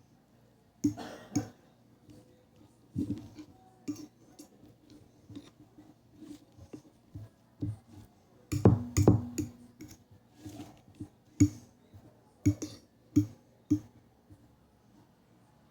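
Cutlery knocking, clinking and scraping on a plate in irregular strokes while butter is spread on sweet potato, with a louder cluster of knocks about halfway through.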